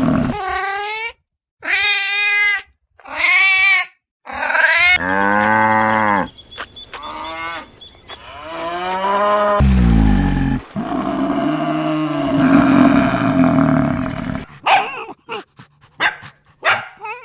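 A string of different animal calls edited one after another: four short calls with a wavering pitch, then longer, lower calls including one very deep, loud one about ten seconds in, and a dog barking in short sharp barks near the end.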